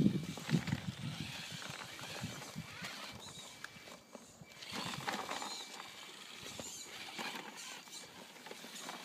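Irregular crunching and pattering of snow under movement, with a few low thumps in the first second.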